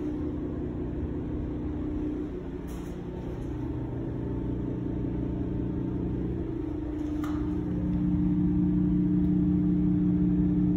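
A steady low mechanical hum with a couple of held pitches, growing louder for the last few seconds.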